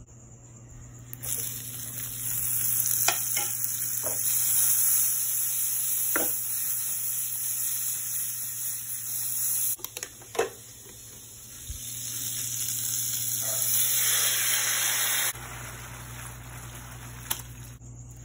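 Food sizzling while frying in a hot pan, in two stretches with a short break midway. A few sharp knocks of a utensil against the pan come through it.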